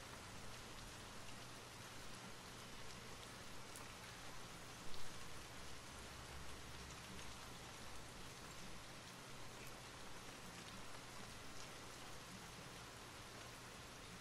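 Steady rain falling: a soft, even hiss with scattered ticks of single drops, and a brief louder thump about five seconds in.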